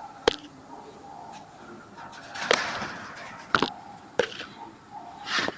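Several sharp clicks and knocks, with a short scraping rustle a little over two seconds in and another near the end, from hands and tools being handled around the engine.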